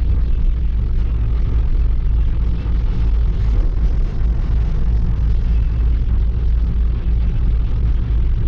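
Steady low rumble of an Iveco truck on the move, engine and road noise heard from inside the cab.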